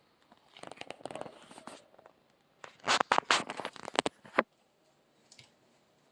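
Hands handling small VCR parts and tools during disassembly: scratchy rustling, then a quick run of sharp clicks and knocks about halfway through.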